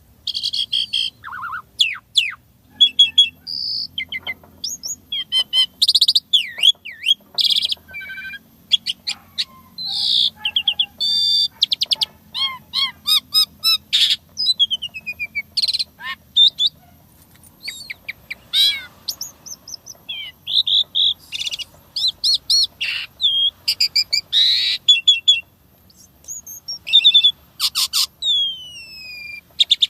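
Asian pied starling (jalak suren) singing a fast, varied song: short whistles, chattering notes, sharp clicks and sweeping glides, with mimicked sounds of other birds worked in. Several long falling whistles come near the end.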